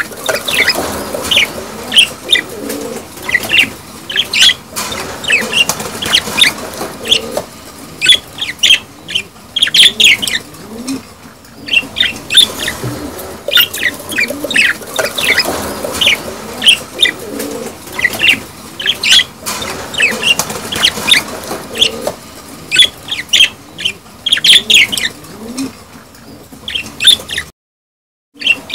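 Budgerigars chattering and warbling in a dense, continuous run of short chirps and clicks, the chatter of budgie mating and breeding. It breaks off briefly about a second before the end.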